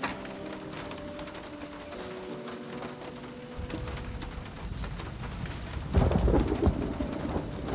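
A thunderstorm: steady rain falls throughout while thunder rumbles in a few seconds in and breaks loudest about six seconds in, then rolls away. Held music tones sound under the rain in the first half.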